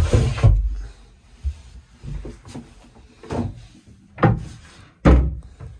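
Pull-out hand basin unit pushed shut into its wooden cabinet with a sharp knock, followed by several lighter wooden knocks and bumps.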